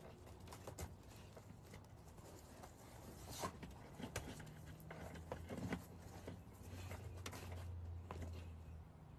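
Faint scattered light knocks, taps and rustles of hands handling boards and materials at a ceiling, with a low hum that swells for the last couple of seconds.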